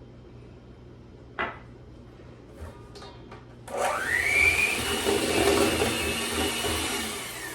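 Electric kitchen mixer switched on about three and a half seconds in, its motor whine rising quickly as it comes up to speed, then running steadily as it beats an egg into the oil and sugar. A short knock about a second and a half in.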